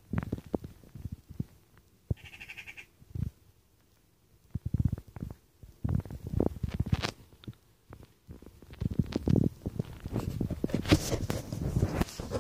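Irregular low rumbling bumps and knocks of a handheld phone being handled, with a brief high-pitched squeak about two seconds in and denser rustling noise near the end as the camera swings.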